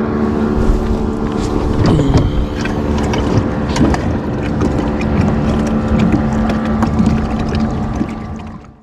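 A boat motor running steadily and loudly, cutting off abruptly just before the end.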